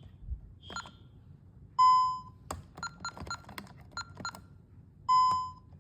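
Home security system keypad beeping: a half-second steady beep, then a quick run of about ten short beeps with key clicks, like buttons being pressed, then another half-second beep.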